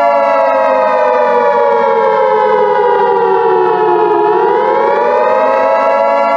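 Civil defense siren wailing: its pitch slides down over about four seconds, then climbs back up, with a steady siren tone held underneath.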